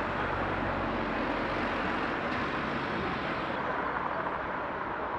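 Steady outdoor ambience of road traffic, an even rushing noise with no distinct events; the higher hiss eases a little about three and a half seconds in.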